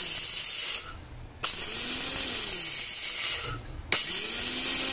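Prestige 500 W mixer grinder running in pulses, grinding dry black gram (urad dal) to a fine powder in its small steel jar. It cuts out and starts again twice, the motor's whine falling and then rising each time.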